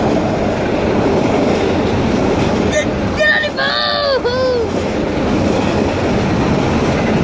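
Long freight train of enclosed autorack cars rolling past a grade crossing: a steady, continuous rumble and rattle of cars and wheels on the rails.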